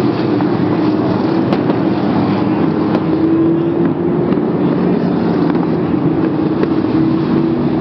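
Sprint car racing engines running at speed: a loud, steady drone that wavers only slightly in pitch.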